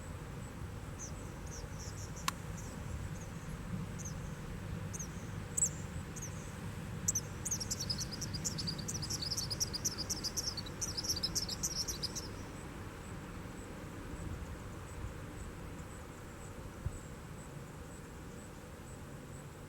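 Outdoor summer nature ambience: scattered high chirps, then a rapid run of high chirping for about five seconds in the middle, over a faint steady high tone and a low background rumble. A single sharp click comes about two seconds in.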